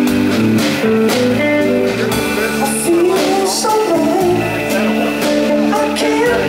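Live rock band playing loudly: electric guitar and electric bass over drums, with repeated cymbal hits.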